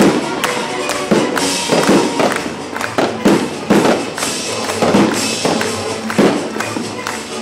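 Fireworks shells bursting in a fast series of sharp bangs, one or two a second, with crackling, over a symphony orchestra playing live.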